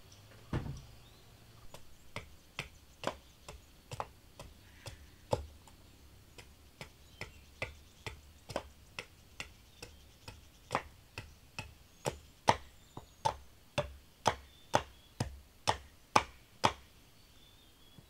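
A tool striking wood in a steady series of sharp knocks, about two to three a second, growing louder in the second half and stopping about a second before the end.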